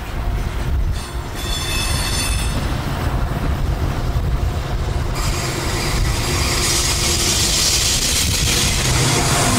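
Freight train rolling past with a steady low rumble of wheels on rail. Its wheels give a brief high squeal about one and a half seconds in, and a rising hiss builds from about five seconds in.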